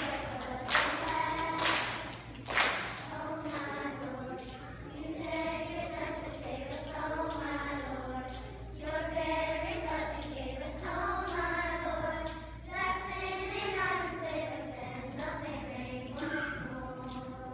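Children's choir singing together. A few sharp knocks sound in the first three seconds.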